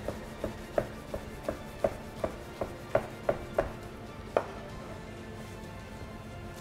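Chef's knife dicing tomato on a cutting board: about a dozen crisp knife taps, roughly three a second, stopping about four and a half seconds in.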